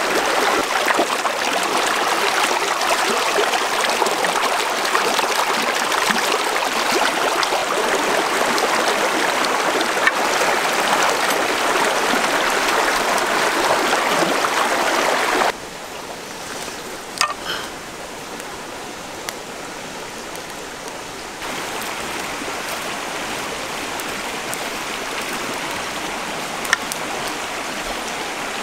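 Shallow stream rushing over rocks in a steady, loud wash. About halfway through it drops suddenly to a quieter rush with a few faint clicks, then rises slightly again.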